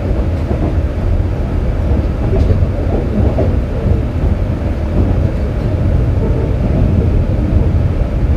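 KiHa 47 diesel railcar running between stations, heard from aboard: a steady low drone from the diesel engine and the rumble of the wheels on the track.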